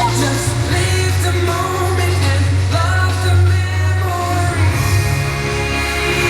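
Show soundtrack music with singing over a strong, steady bass.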